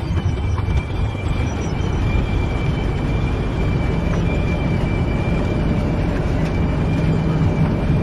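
Heavy opencast-mining machinery running: a steady low rumble with a thin, high, continuous whine on top.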